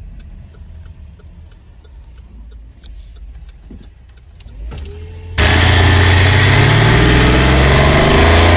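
Chevy Traverse engine running as the SUV makes a left turn: a low rumble at first, then from about five seconds in loud and close, picked up under the hood, where the engine and its belt-driven parts all sound together. This is the moment the owner listens for an odd noise on turns, which he suspects comes from low engine oil.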